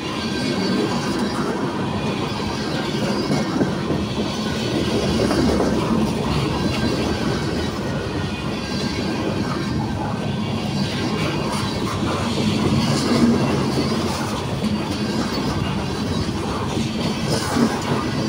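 Boxcars of a CSX mixed manifest freight train rolling past close by: a steady rumble of steel wheels on rail, with clicks from the wheels and a couple of louder knocks in the second half.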